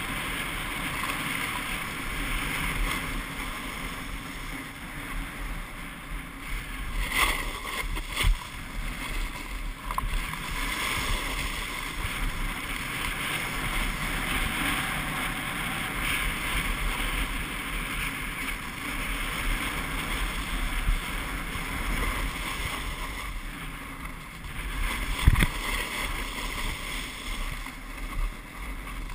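Wind rushing over the microphone of a camera carried at speed down a ski slope, mixed with the steady hiss of edges sliding on snow. A few sharp knocks break in, the loudest about 25 seconds in.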